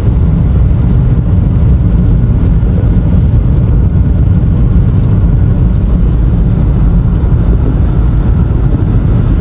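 Loud, steady low rumble of a moving vehicle, with no breaks or distinct events.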